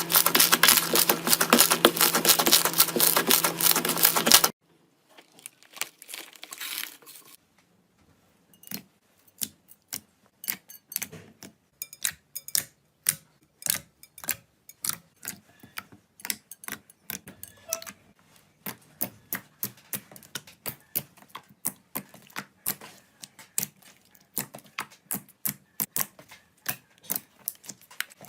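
Slime being squeezed and poked by hands: a dense, loud crackling for the first few seconds, then after a sudden change a quieter run of separate sticky clicks and pops, a few a second.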